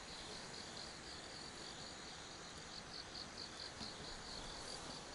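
Faint cricket chirping in an even, steady pulse, about five chirps a second.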